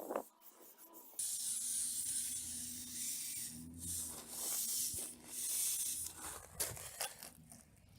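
Rushing snowmelt runoff water with a spray-like hiss that starts suddenly about a second in and swells and eases in surges, over a faint steady low hum from the small RC crawler's motor.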